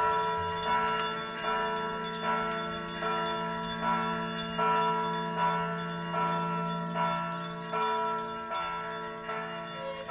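Church bells ringing, struck over and over at about one stroke every three-quarters of a second, the tones sounding on between strokes.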